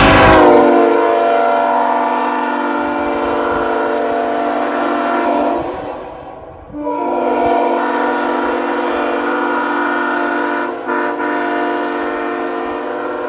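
Nathan Airchime K5-series five-chime locomotive horn blowing its deep chord in two long blasts. The first is already sounding, sags slightly in pitch in the first second, then fades out about six seconds in; the second starts about a second later and holds on, with a brief dip near eleven seconds.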